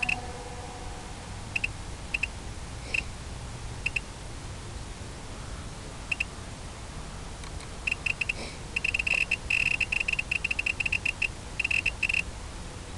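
Short electronic beeps, all at the same high pitch, over a steady low noise. They come singly or in pairs at first, then in rapid clusters from about eight seconds in until near the end.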